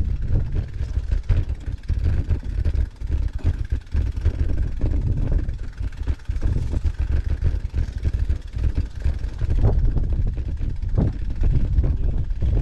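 Wind buffeting the bicycle's handlebar-mounted camera microphone as a loud, uneven low rumble, with a few knocks near the end from the bike jolting over the rough dirt trail.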